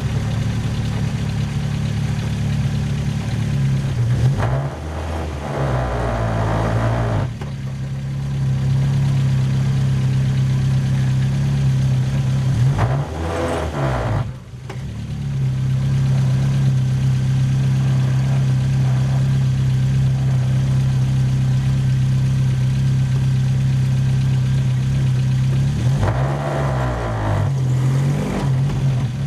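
Formula Ford single-seater's engine running at low revs as the car creeps along. Its note shifts with brief changes in revs about four seconds in, around thirteen seconds, and again near the end.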